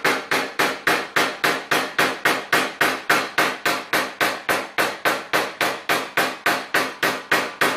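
Small hammer tapping a knockdown punch against a steel car fender in a steady run of about four blows a second, each a short sharp metallic knock. This is paintless dent repair: knocking down the raised metal left after glue pulling to flatten the panel.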